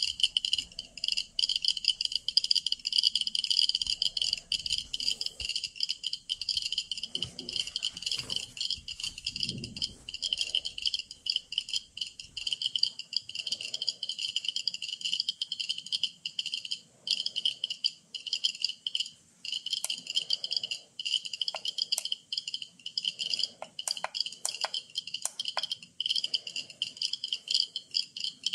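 Many Geiger-counter dosimeters clicking at once. Each tick is a count from the tube, and together they make a dense, irregular crackle of high-pitched ticks while the counters register background radiation.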